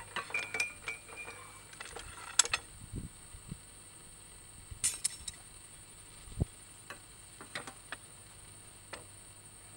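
Irregular metallic clicks, clinks and knocks from a percussion drilling rig's hand-lever extraction jack as it is worked to draw the sampling gouge up out of the borehole, with a brief high tone near the start and a low thud about six seconds in.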